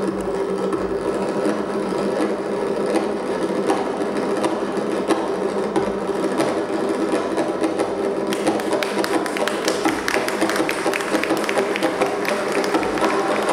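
Tombak, the Persian wooden goblet drum, played with very fast rolling finger strokes, a dense run of ticks that grows brighter and denser about eight seconds in.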